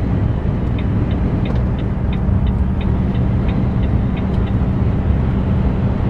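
Inside a lorry cab at about 53 mph: the steady drone of the diesel engine with road rumble. Between about one and four and a half seconds in there is a run of about a dozen light, regular ticks, about three a second.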